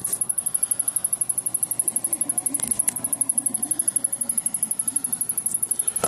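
Samsung CRT rear projection television's power supply ticking rapidly, a high-pitched chirp about ten times a second, with a few sharper clicks about two and a half and five and a half seconds in. The ticking is the sign of a fault the owner puts down to something shorting out, with the supply clicking off and starting back up instead of firing up fully.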